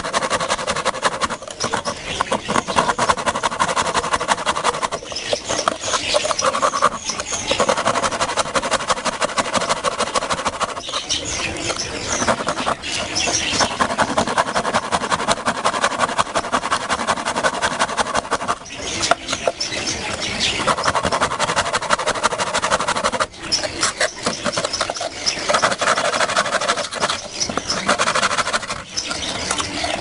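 Rusty hand saw cutting across a hollow log in repeated rasping strokes, with short pauses every few seconds.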